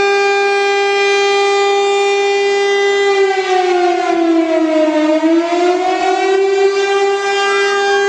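A siren holding a loud, steady tone. About three seconds in its pitch sags, and it winds back up to the steady tone a few seconds later.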